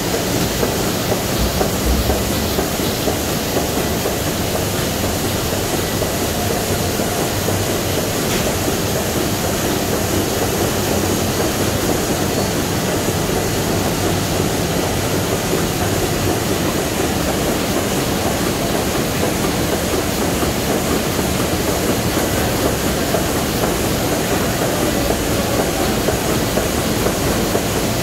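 KBA Rapida 74 sheetfed offset printing press running, a steady, even mechanical noise that does not let up, with printed sheets feeding out into the delivery.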